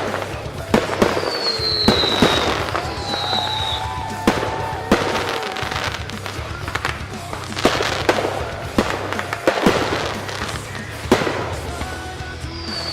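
Fireworks finale: a rapid series of shell bursts and crackling bangs, with a few short, falling high-pitched whistles from whistling shells.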